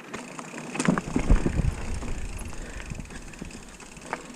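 Mountain bike rolling over a dirt trail, with low thumps and knocks from the bike over bumps between about one and two seconds in, a few sharp clicks, and wind on the microphone.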